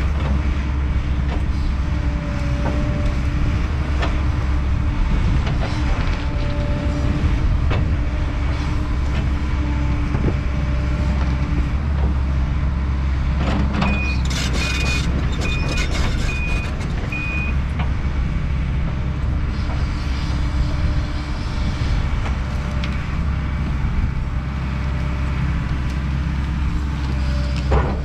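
Kobelco SK210 excavator's diesel engine running steadily under working load, with a few metallic clanks. About halfway through comes a run of five short high beeps.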